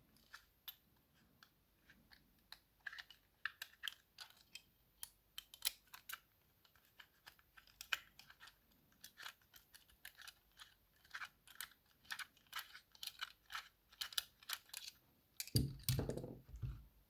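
Small tools clicking and tapping on the metal parts of a disc detainer padlock as it is taken apart, in quick, irregular light clicks. A short, louder sound comes near the end.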